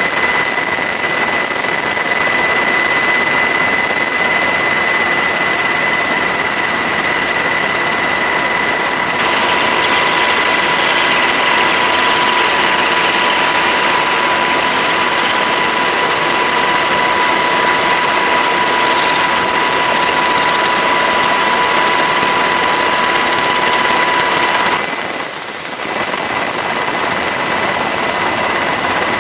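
Steady engine and rotor noise of a helicopter heard from aboard: an even rushing hiss with constant high tones running through it. The mix shifts slightly about nine seconds in and dips briefly near the end.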